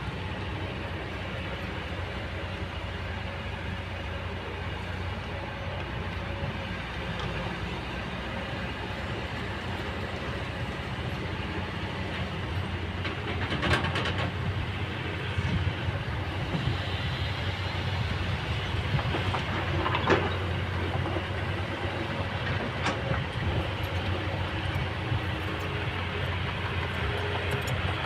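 Kobelco excavator's diesel engine running steadily, with a sharp clank about halfway through and a louder one about two-thirds of the way in.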